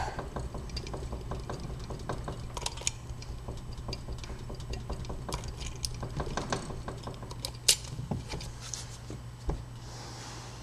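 Slaymaker SL1 key blank being worked in an old five-wafer padlock for impressioning, wiggled back and forth, turned under pressure and bounced against the wafers: a run of small metallic clicks and rattles, with two sharper clicks late on. A steady low hum sits underneath.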